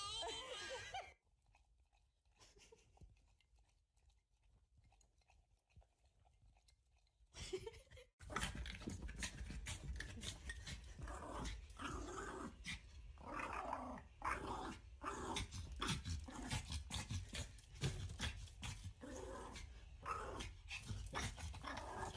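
A small long-haired dog growling and barking over and over, starting about eight seconds in, while it faces a clothes iron held out toward it. Before that, a brief goat bleat at the very start and a few seconds of near quiet.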